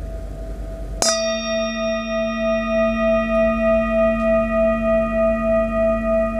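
A metal singing bowl, already ringing, is struck with a wooden striker about a second in. It rings on in a low hum with several higher steady overtones, its tone wavering in a slow, regular pulse.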